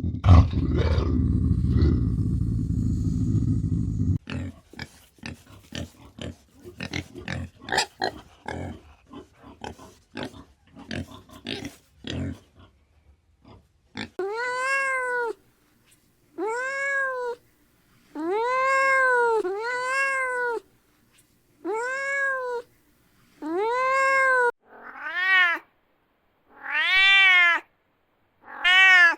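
A cat meowing again and again: about ten separate meows, each about a second long, rising then falling in pitch. Before the meows begin, halfway in, there is a low rumble for the first few seconds and then a run of irregular clicks and taps.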